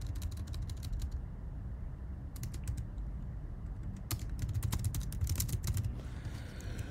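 Typing on a computer keyboard: short runs of keystroke clicks, one at the start, one about two and a half seconds in, and a longer run from about four to five and a half seconds in, with pauses between them.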